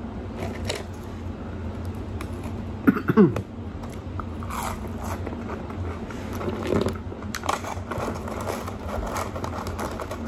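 Close-up chewing and crunching of French fries, with crackly mouth sounds throughout. About three seconds in there is one louder short vocal sound that falls in pitch.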